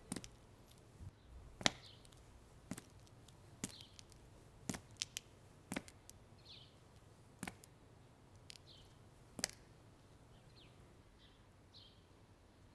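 Slow footsteps of boots on a hard floor, about one step a second, faint and sharp. They stop about three quarters of the way through.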